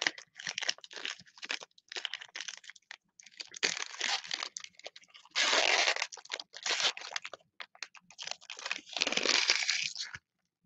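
Foil wrapper of a 2021 Panini XR football card pack being torn open and crinkled by hand, an irregular crackling that is loudest about halfway through and again near the end, then stops.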